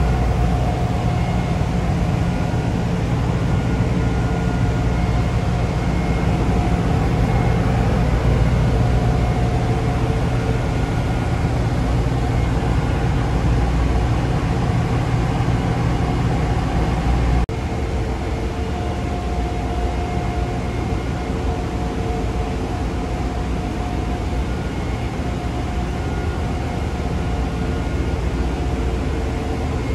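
Steady drone of a chemical tanker's engine-room machinery, heard inside the engine control room: a deep rumble with a few faint steady tones over it. About halfway through it abruptly drops a little in level and loses some of its deepest rumble.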